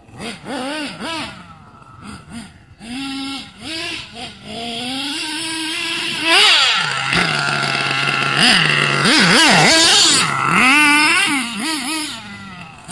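Nitro RC monster truck's small two-stroke glow engine revving in repeated blips, its pitch swooping up and down as the throttle is worked. It grows louder and holds high revs for several seconds through the middle, then falls back to shorter blips near the end.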